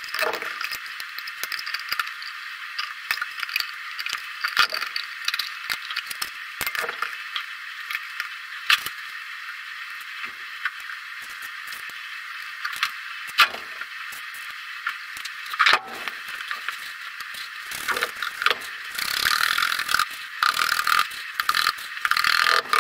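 Scattered scrapes, taps and small clicks of hand work in a sand-filled box mould around upright motorcycle fork tubes, with a denser stretch of hissing and scraping of sand about three quarters of the way through.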